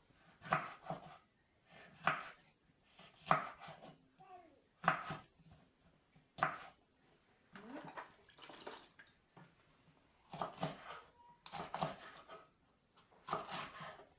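Knife chopping vegetables on a cutting board: a dozen or so separate strokes, roughly one a second and unevenly spaced.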